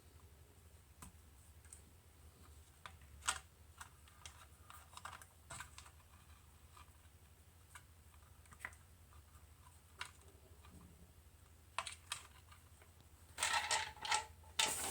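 Sparse small clicks and plastic ticks from hands twisting wire nuts off the power-switch wires inside a soldering station, with a busier run of rattling handling near the end.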